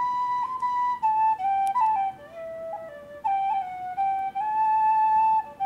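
Background music: a solo flute melody of held notes stepping up and down.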